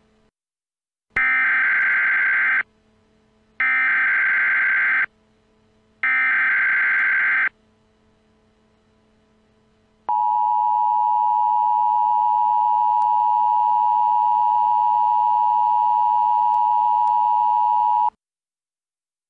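Emergency Alert System tones: three identical digital SAME header data bursts, each about a second and a half, followed by the steady two-tone EAS attention signal, held for about eight seconds, that cuts off suddenly. The sequence marks the start of an emergency alert, with the voice message to follow.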